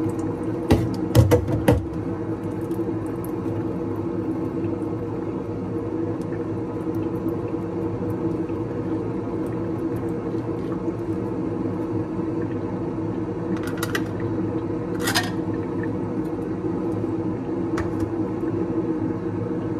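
A steady mechanical hum with a few fixed tones, like a kitchen appliance running. Over it come short knocks and clinks of metal cans being handled on a counter, a cluster about a second in and two more around the middle.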